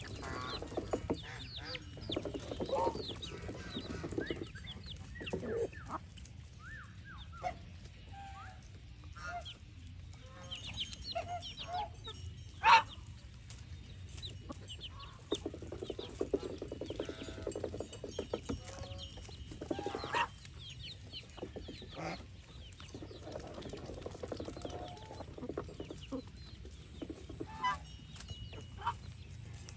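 Farmyard poultry calling: clucking in bursts and many short chirping calls throughout, with one sharp click near the middle standing out as the loudest sound.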